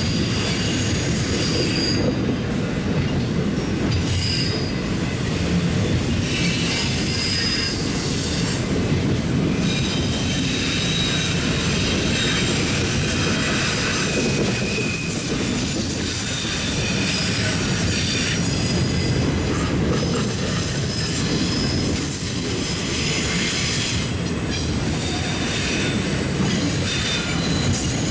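Autorack freight cars rolling past at steady speed: a continuous rumble of wheels on rail, with short, high squeals from the wheels coming and going throughout.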